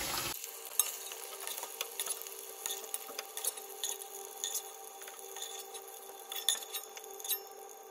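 A cooking spoon clinking and scraping against a nonstick pot as fried chicken pieces are lifted out of the oil: many short, irregular clicks over a faint steady hum.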